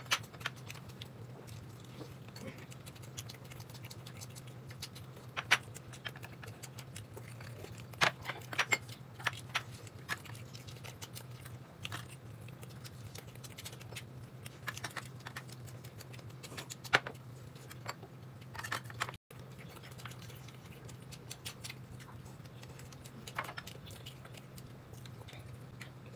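A person eating: chewing and scattered sharp clicks of tableware, over a steady low hum.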